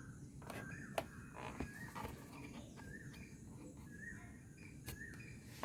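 Faint short animal chirps, repeating about once a second, with a few sharp clicks in between.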